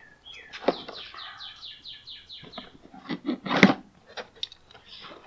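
A cardboard shipping box being pulled open and handled: rustling, scraping and a few sharp knocks, the loudest about three and a half seconds in. Early on, a bird trills in the background, a quick run of short falling notes lasting about two seconds.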